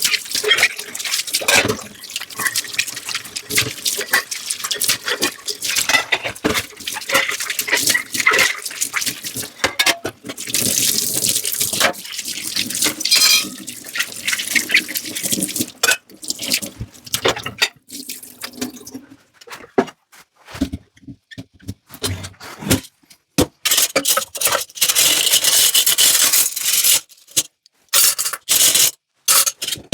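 Tap water running and splashing in a kitchen sink while dishes are washed, with knocks and clinks of dishes being handled. In the second half the sound stops and starts, with short quiet gaps.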